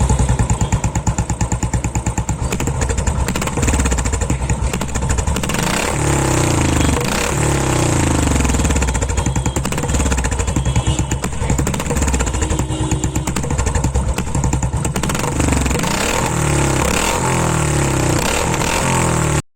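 Royal Enfield single-cylinder engine running through an aftermarket Bofor barrel-style silencer: a steady thumping idle at first, then revved up and down again and again from about six seconds in. The sound cuts off suddenly near the end.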